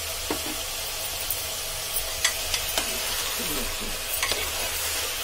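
Mutton, onion, tomato and spices sizzling in hot oil in an aluminium pressure cooker over a high gas flame, with a steady hiss. A metal ladle stirs the mix and clinks against the pot several times.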